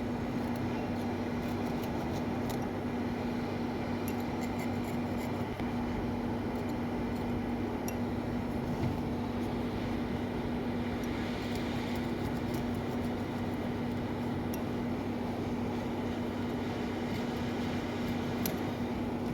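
Steady mechanical hum of a running fan or blower, with a constant low tone and faint small clicks now and then.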